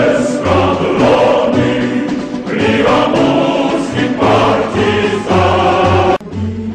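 Loud choral music: a choir singing a tune over low bass notes, with a sudden brief drop in loudness near the end.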